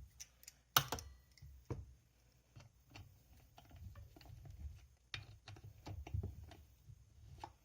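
Light, irregular clicks and taps of hand tools and chainsaw parts being handled, with one sharper knock about a second in.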